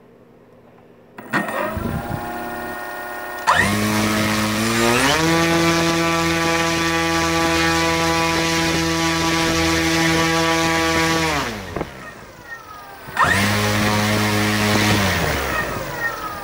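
HobbyKing Elite 5010 274 kV brushless motor spinning an 18x4 carbon fiber prop in a full-throttle thrust test on 6S. It spins up about a second in, its whine rising in pitch in steps to a steady full-throttle pitch for about six seconds, then winds down; a second shorter run-up follows near the end and falls away again.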